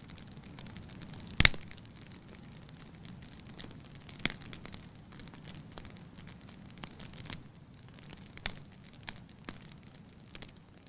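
Scattered sharp clicks and crackles over a low steady hum, with no music; the loudest click comes about a second and a half in.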